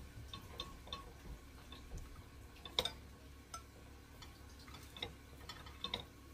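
Slotted metal spatula tapping and scraping against a ceramic casserole dish as cooked spaghetti is tossed to keep the noodles from sticking. The clicks are light and irregular, with a sharper knock about three seconds in.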